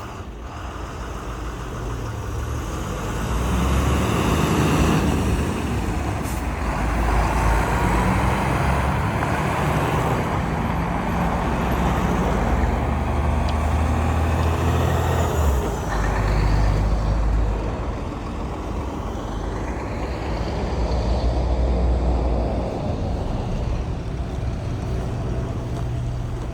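Street traffic: trucks and cars driving past with a continuous low engine rumble that swells and fades as vehicles go by.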